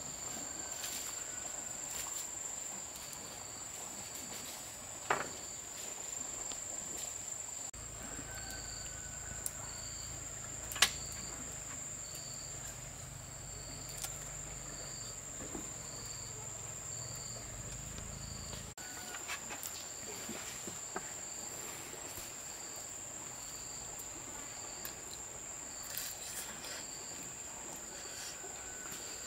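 Insects calling steadily: a continuous high drone, with a chirp pulsing about once a second under it. A few sharp knocks or cracks come now and then, and a low rumble runs through the middle stretch.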